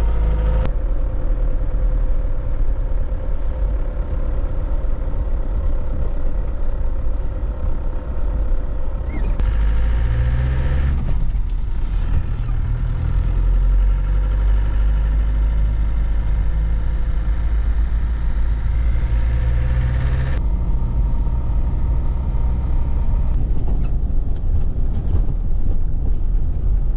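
1997 Land Rover Defender running and being driven, heard from inside the cab: a steady low engine rumble with a steady whine over it, changing in tone a few times.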